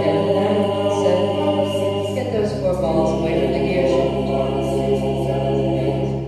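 Choral music: voices holding long notes over a low drone that drops deeper about two and a half seconds in, beginning to fade out near the end.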